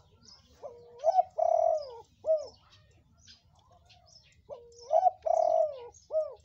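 Spotted dove cooing: two phrases of its call about four seconds apart. Each is a soft low note rising into a long coo, then a short final coo. Faint high chirps of small birds sound in the background.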